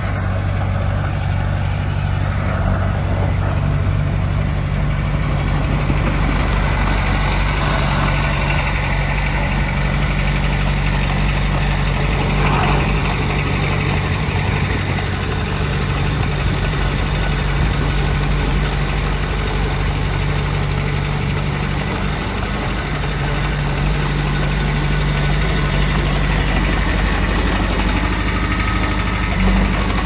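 Komatsu D20P bulldozer's diesel engine running steadily, with a brief knock near the end.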